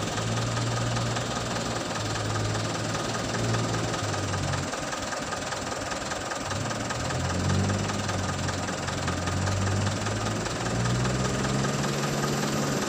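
Diesel engine of earth-moving machinery running, its speed dipping and rising a few times.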